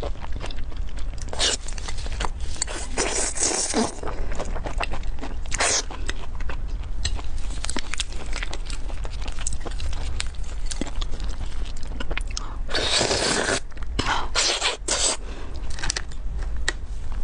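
Close-miked eating: chewing and wet slurping as meat is sucked and scraped out of a spiny lobster's head shell, with several louder slurps, the longest about 13 seconds in.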